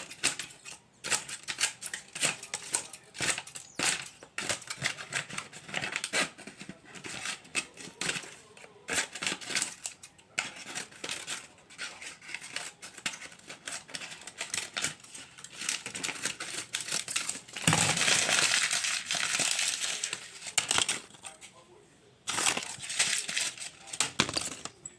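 Plastic tape squishy being squeezed and handled: rapid, irregular crinkling and crackling of tape, with a longer, denser stretch of crinkling about 18 seconds in.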